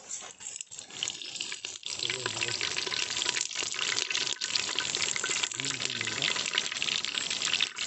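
Curry leaves sizzling and crackling in hot oil in a clay pot, a steady hiss that swells about two seconds in.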